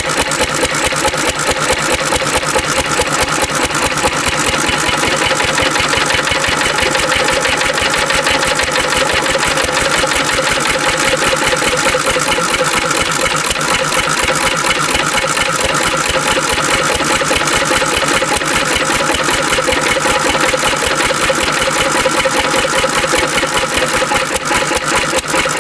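Antique Cushman Cub throttle-governed, single-cylinder stationary gas engine running steadily on diesel fuel, its exhaust firing in a rapid, even beat.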